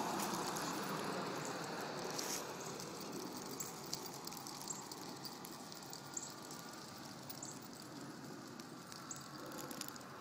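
Road noise from a passing vehicle fading away over the first few seconds, leaving a faint steady hiss with scattered small clicks.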